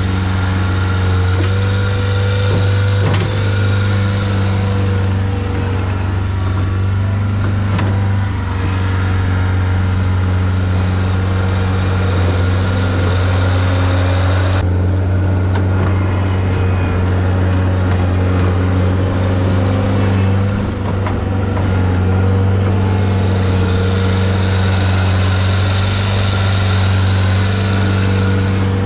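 An engine running steadily at a constant speed, with an unchanging low hum.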